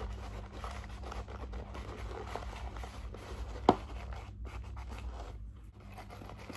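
A damp paper towel and fingers rubbing and wiping the outside of a clear plastic orchid pot to clean off charcoal dust, a run of scratchy scraping on plastic. A single sharp tap, the loudest sound, comes a little past halfway.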